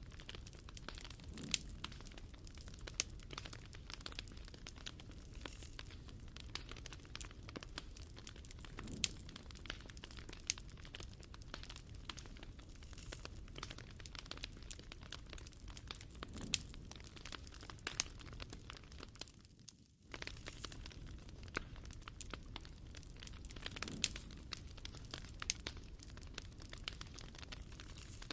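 Wood fire crackling: irregular snaps and pops over a low, steady rumble. Just before twenty seconds in it briefly fades out and then cuts back in suddenly.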